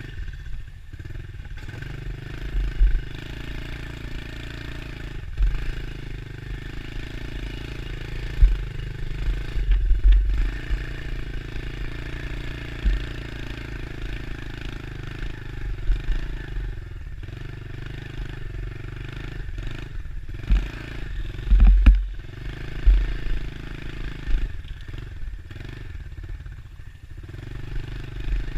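Dirt bike engine running at a fairly steady pace while riding a trail, heard from on the bike, with several loud low thumps along the way.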